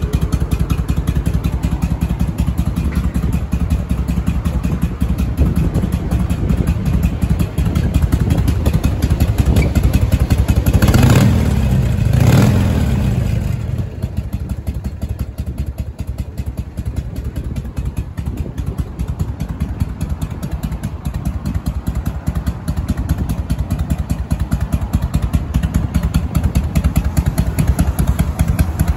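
1999 Harley-Davidson Fat Boy's V-twin engine running through Screamin' Eagle mufflers at idle, revved twice in quick succession about eleven seconds in, then settling back to a quieter idle.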